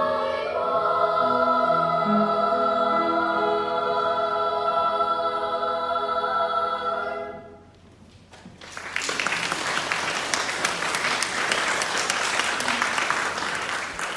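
Children's choir singing a held chord that ends about seven and a half seconds in; a second later the audience breaks into applause.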